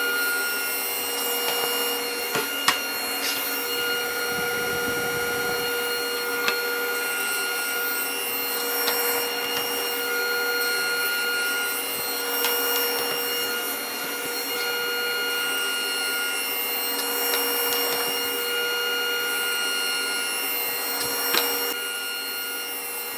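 Powermatic cabinet table saw running with a steady whine, along with the shop dust collector. It rips 3/4-inch particle board, and the cutting noise swells and fades as the board is fed through the blade.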